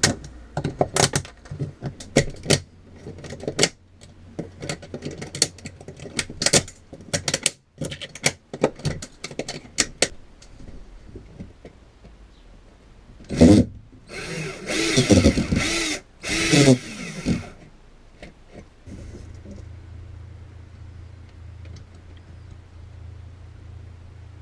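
A long run of sharp clicks and snaps from brittle plastic cable conduit being handled and broken off. Then a louder mechanical whirr, rising and falling in pitch, for about four seconds in the middle, and a low steady hum near the end.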